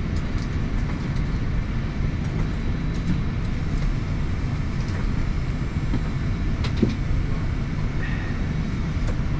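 Steady low rumble of cabin noise inside an Airbus A350 airliner, with a brief click about seven seconds in.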